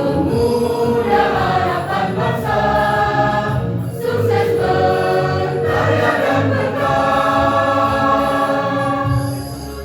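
School choir singing a march in several voice parts, with long held chords near the end.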